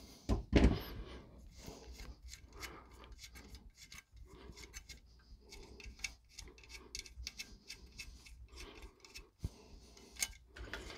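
Small metal scrapes and clicks as a steel electrical box and its mounting screws are handled and turned by hand, with two louder knocks in the first second.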